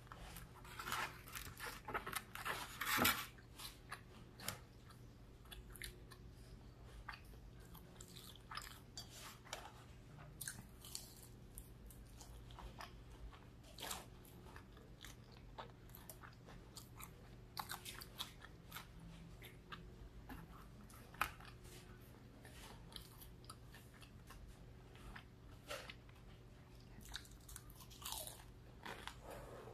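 Chewing and biting into breaded fried fish and fries, with irregular crunches throughout, the loudest cluster coming about one to three seconds in.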